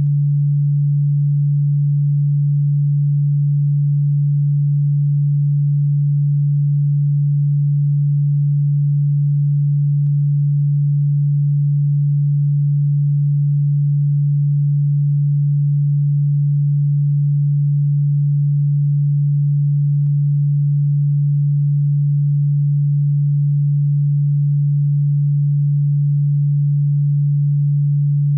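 A steady, unchanging low pure tone: an electronically generated sine-wave tone sold as a cockroach and ground-bug repellent sound. It is low-pitched, not ultrasonic.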